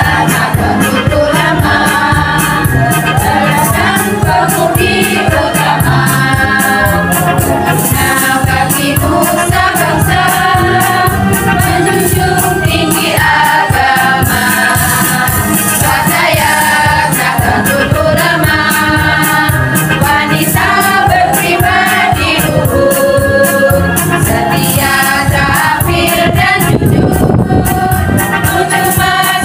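Women's choir singing a march together over instrumental accompaniment with a steady beat.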